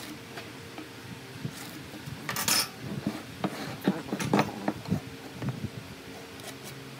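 A steel ruler, pen and hardwood blocks handled on a wooden workbench: a short scrape about two seconds in, then a run of light knocks and metallic clinks as the pieces are shifted and set down.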